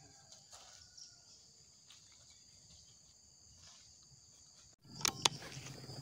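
Faint, steady high-pitched buzz of insects. Near the end, two sharp clicks come in quick succession.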